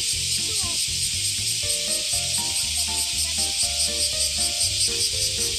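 Dense chorus of cicadas, a loud steady hiss that pulses rapidly, over background music with a bass line and short melody notes.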